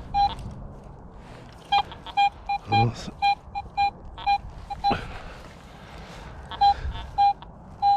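Garrett AT Pro metal detector giving short, repeated beeps of one steady pitch as the coil passes over a good non-iron target (ID around 65 to 71), with a dull knock about three seconds in.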